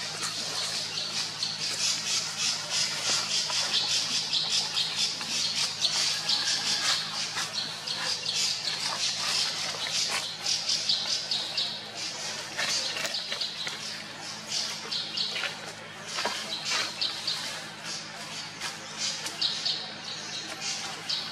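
Baby long-tailed macaque crying: rapid, repeated high-pitched squealing screams, almost unbroken and fading somewhat in the second half.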